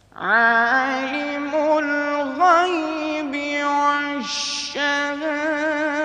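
A man reciting the Quran in melodic tajweed style. His voice rises into a long held note just after the start and holds sustained, ornamented notes that waver in pitch, breaking off briefly about four seconds in before going on.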